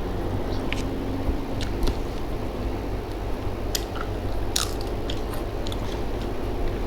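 Close-up chewing and biting of crisp fried food, with irregular sharp crunches over a steady low background hum.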